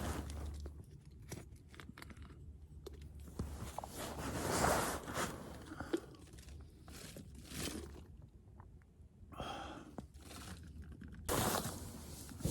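Irregular crunching and scraping handling noises, loudest about halfway through, with a sudden louder rustle near the end.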